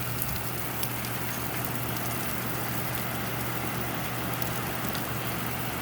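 Heavy thunderstorm rain pouring steadily, a dense even hiss with scattered sharper ticks of drops hitting nearby, over a low steady hum.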